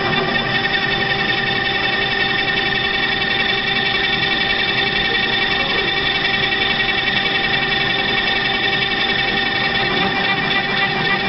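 CNC router spindle running steadily while engraving a PCB: a constant whine at several steady pitches over an even noise, with no change in speed.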